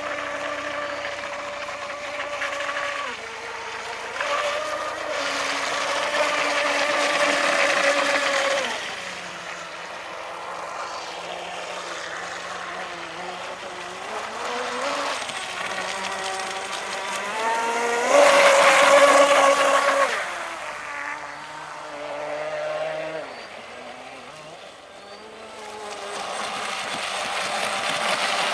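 Pro Boat Blackjack 26 brushless RC boat running on water: its electric motor's whine rises and falls in pitch as the throttle changes. It is loudest and highest about two-thirds of the way through.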